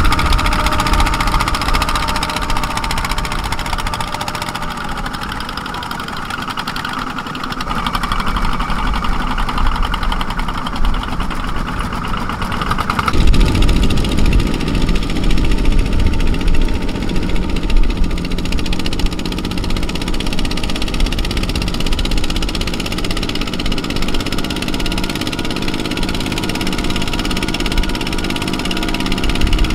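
Single-cylinder diesel engines of two-wheel walking tractors running steadily as they pull trailers loaded with rice sacks across a harvested paddy. The sound changes abruptly about 13 seconds in, then runs steadily on.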